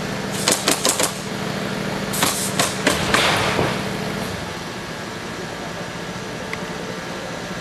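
Sharp knocks from roofing work: a quick run of about five, then a few more a couple of seconds later. Under them a steady mechanical hum runs and stops a little past halfway.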